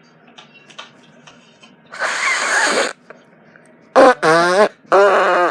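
A person making silly mouth noises: a breathy hissing noise lasting about a second, then two loud warbling vocal sounds whose pitch wavers rapidly up and down near the end.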